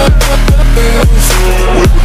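Loud electronic background music with heavy bass and a steady drum beat.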